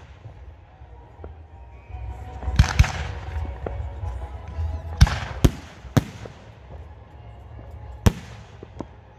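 Aerial firework shells bursting, six sharp bangs: a pair about two and a half seconds in, three in quick succession around five to six seconds, and one near eight seconds, over a steady low rumble.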